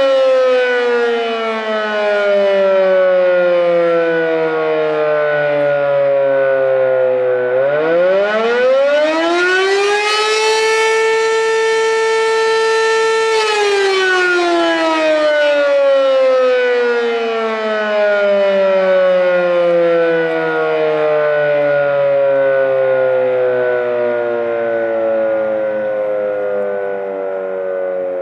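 An 8-port Model 7 outdoor warning siren sounding the attack signal, a single loud tone that rises and falls. Its pitch sinks for the first several seconds and climbs sharply about eight seconds in. It holds high for about three seconds, then slowly winds down through the rest.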